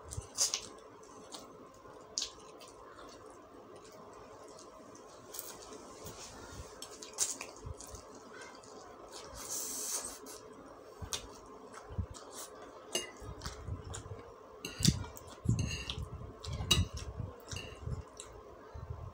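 A person eating fried noodles and a half-cooked egg: a metal fork and spoon clicking and scraping against a plate at irregular moments, along with mouth sounds of chewing. The clicks come more often in the last few seconds.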